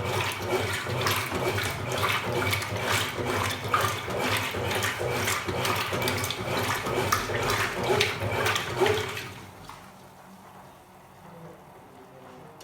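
Consul Supercargo top-loading washing machine with water splashing and churning in its tub, which stops abruptly about nine seconds in and leaves only a faint low hum.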